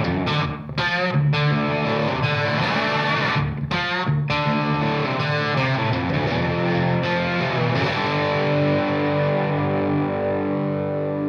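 Background music led by a distorted electric guitar, with held notes and a few brief stops in the first half.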